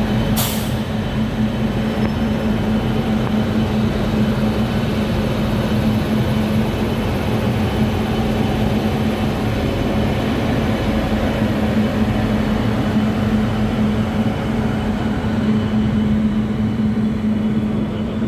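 Garib Rath Express ICF coaches pulling out of a station, heard from the open coach doorway: a steady running rumble with a constant low hum and a brief hiss about half a second in.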